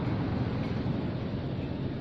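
Steady low rumbling background noise with no distinct event.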